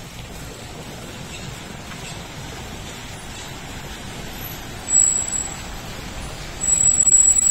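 Shuttle van driving up and stopping, over steady traffic noise. A thin high squeal sounds briefly about five seconds in and again, louder, near the end.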